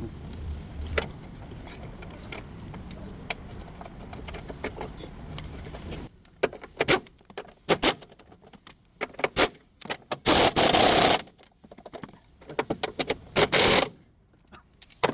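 Car workshop sounds: a car engine runs steadily for about six seconds with light metallic clicks, then sharp metal clinks and clatter of tools follow, with two loud hissing bursts about ten and thirteen seconds in.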